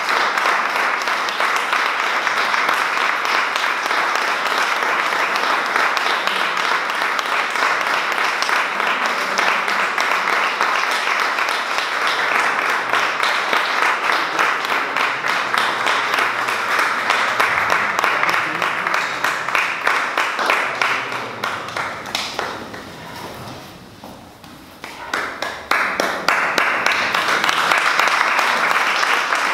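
Audience applauding. The clapping thins out and nearly dies away about three-quarters of the way through, then picks up again.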